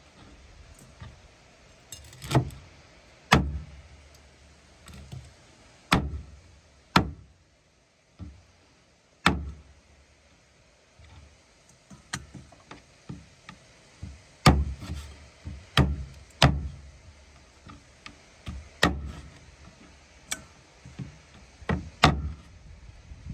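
Meat cleaver chopping raw game meat on a wooden cutting board resting on a pickup truck's metal tailgate: irregular sharp chops with a dull thud, one every second or two, with short pauses between.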